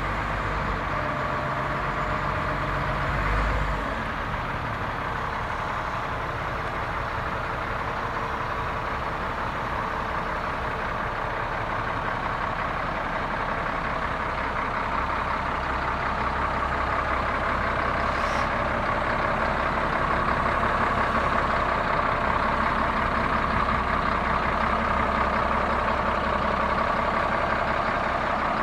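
Caterpillar 966F Series II wheel loader's diesel engine running steadily while the machine stands still, a little louder in the second half.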